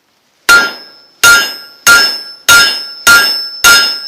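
Blacksmith's hand hammer striking a hot steel holdfast on the anvil: six steady blows about two-thirds of a second apart. Each blow rings with a clear metallic tone that dies away before the next.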